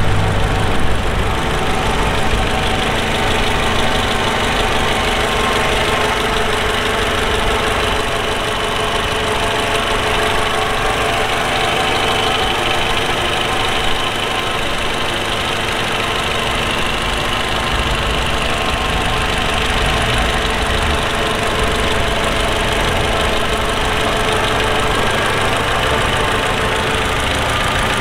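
Toyota Camry (XV55) petrol engine idling steadily, heard up close in the open engine bay.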